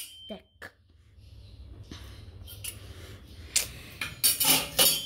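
A toddler's brief vocal sounds, a short falling squeak in the first second and louder noisy cries near the end, with a click and handling noise over a low steady hum.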